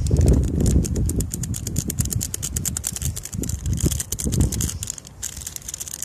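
Strong wind buffeting the microphone in gusts, a low rumble that swells and dips, over a dense rapid crackle of high clicks.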